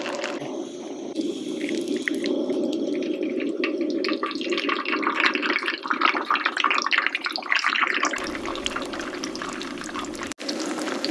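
Egg frying on a hot skottle griddle, sizzling with a steady hiss and dense little pops and crackles that grow busier about two seconds in.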